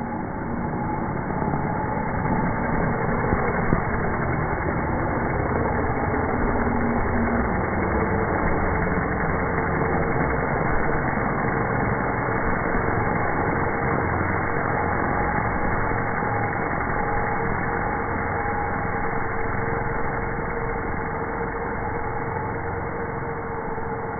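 DJI Mavic Pro quadcopter's motors and propellers buzzing as it spins up, lifts off and hovers low, growing louder over the first couple of seconds. The steady hum's pitch steps up about seven seconds in.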